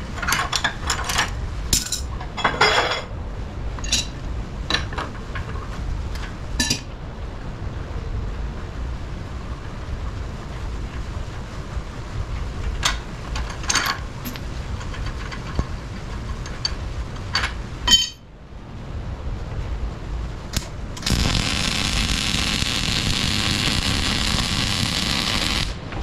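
Scattered metallic clinks and knocks of tools and parts over a low steady rumble, then near the end a MIG welding arc strikes and runs as a loud even hiss for about five seconds.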